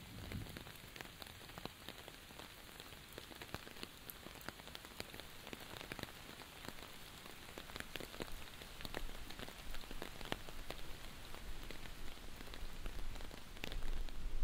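Quiet steady rain falling, with scattered drops ticking, growing a little louder in the second half.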